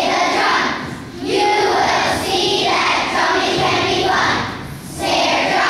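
A children's choir singing, in phrases with short breaks about a second in and again near five seconds in.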